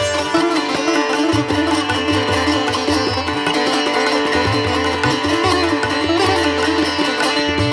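Instrumental Indian classical-style music: a plucked string melody bending in pitch over a steady drone, with low drum strokes.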